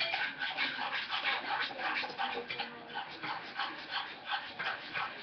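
Dog panting rapidly and steadily, about four breaths a second.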